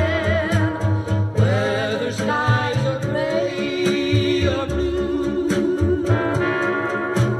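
Music with a solo singer, the voice wavering in a wide vibrato over a regular bass beat and instruments.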